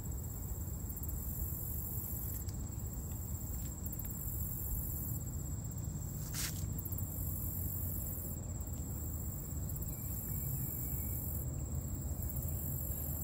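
Summer insect chorus at a lakeside: a steady high drone with a shriller, higher chorus that swells and fades every second or two, over a low rumble. A single sharp click about six seconds in.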